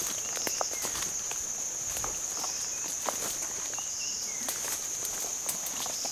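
Steady high-pitched drone of insects, with footsteps crunching and snapping twigs and dry leaves on a forest path.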